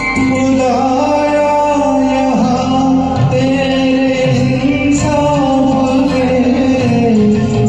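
A man singing a Hindi film song over a karaoke backing track, holding long drawn-out notes.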